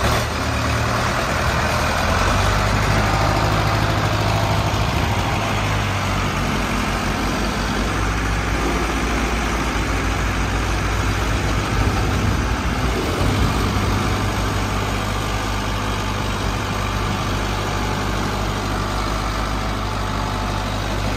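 Two Ford farm tractors, a 1968 Ford 5000 and a 1977 Ford 6600, running with their diesel engines at the same time while chained back to back in a tug-of-war. The engine sound is steady and loud.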